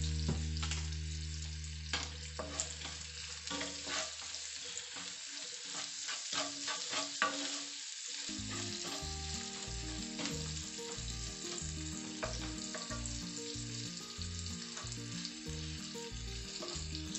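Sliced onions sizzling steadily in butter and olive oil in a non-stick wok. A wooden spatula clicks and scrapes against the pan as it stirs them, most busily in the first half.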